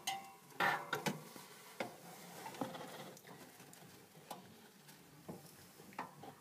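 Hamster chewing food: irregular crisp crunches and clicks, several close together in the first second, then scattered ones every second or so.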